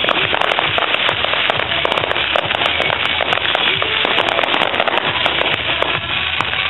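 Fireworks going off in quick succession: a dense, continuous crackle of many small sharp pops from exploding shells, with music playing underneath.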